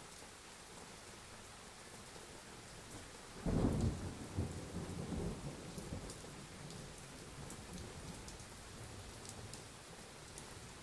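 Steady rain hissing, with a thunderclap that breaks sharply a few seconds in and rumbles away over the next several seconds.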